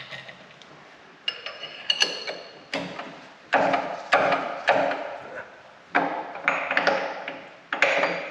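Metal parts and tools being handled and set down: a run of clanks and knocks in several clusters, some ringing briefly.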